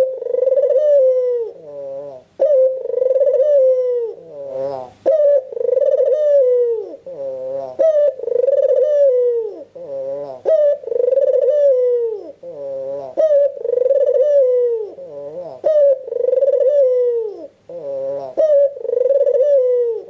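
An albino puter (collared dove) cooing continuously and vigorously: a long held coo about every two seconds, each falling away at its end, run together with rapid, rolling, wavering notes.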